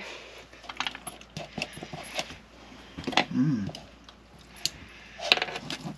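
Light clicks and clinks of people eating, with a brief low murmur about halfway through and busier clicking and rubbing near the end.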